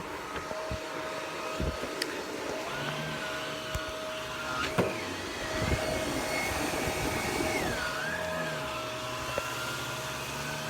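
Vacuum cleaner running with a steady hum and a higher whine that dips and rises in pitch through the middle, with a few sharp clicks and knocks along the way.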